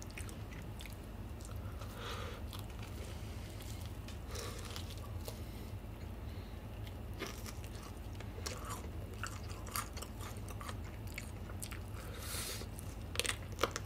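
Biting and chewing a fried chicken drumstick with a crisp seasoned coating, close-miked: scattered soft crunches and clicks as the crust and meat are chewed.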